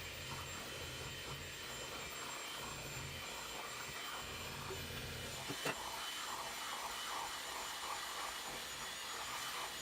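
Steady whirring hum of a small motor, with a single sharp click about five and a half seconds in.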